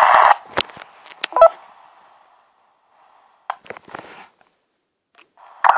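FM handheld radio receiving the VO1GT 2 m repeater: a loud, harsh burst of noisy audio cuts off, followed by a few clicks and a short beep, then faint crackles, and another harsh noise burst starts near the end. This is the kind of noisy repeater audio the uploader records as the repeater's audio issue.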